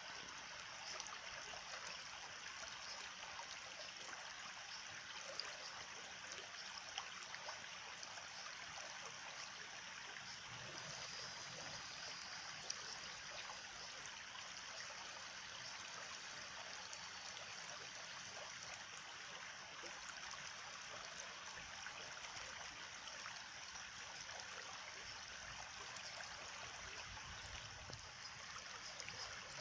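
Small stream running and trickling steadily, with a few faint ticks in places.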